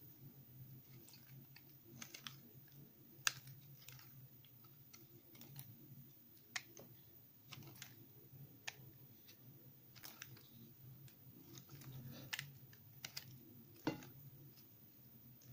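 Snap-off utility knife blade shaving thin curls off a bar made of soap scraps pressed together, giving irregular soft crunching clicks. The sharpest come about three seconds in and near the end.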